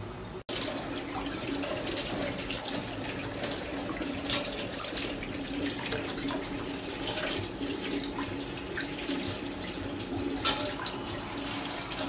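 Kitchen tap running steadily into a stainless-steel sink, starting about half a second in, while a small metal oil lamp is rinsed under the stream, with a few faint clicks.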